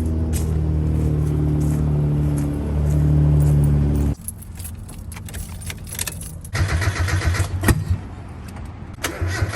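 A steady low hum cuts off about four seconds in. Then a Mazda Miata's starter cranks the engine in two rhythmic bursts, the second starting near the end, without the engine catching. This is the car's no-start, which the owner suspects comes from failing coil packs or spark plug wires.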